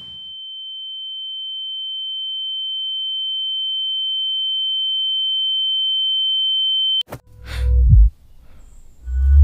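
A single steady high-pitched ringing tone, the film's ear-ringing effect for a character dazed by a blow, swelling slowly louder for about seven seconds and then cutting off suddenly. Deep low booming swells follow near the end.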